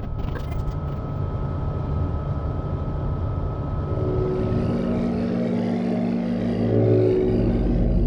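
Synthesized sound-design drones: a dense, grinding drone with a thin steady high tone gives way, about four seconds in, to a deep hum with layered steady tones. Near the end it changes to a low buzzing drone.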